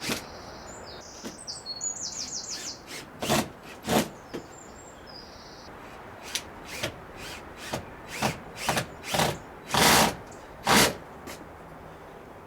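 A series of short, separate scrapes and knocks from hand work with tools on timber, louder a few times around the middle and near the end. A bird chirps in the first few seconds.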